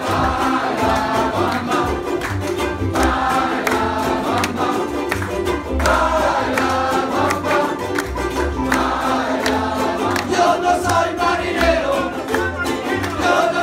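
Ukulele ensemble strumming in rhythm while many voices sing together, with a double bass underneath and a banjo ukulele among the strings. Live group performance, steady and loud.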